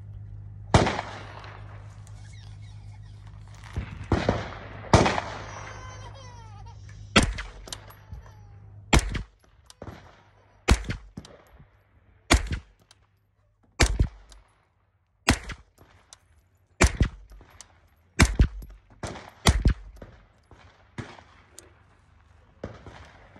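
A Freedom Ordnance FX-9 9mm carbine firing 124-grain ball ammunition through a solvent-trap-turned-suppressor. It fires a slow string of about a dozen single shots, roughly one every one and a half seconds, and cycles without a malfunction.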